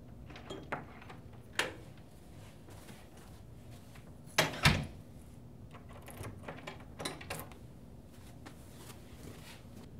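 Wooden office door being handled: clicks of its lever handle and latch, with two louder knocks close together a little before the middle and a few lighter clicks later.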